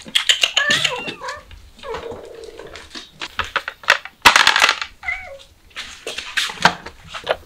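Kitten meowing in short, wavering high calls near the start and again about five seconds in, excited by the smell of chicken. A sharp knock and rustle about four seconds in is the loudest sound.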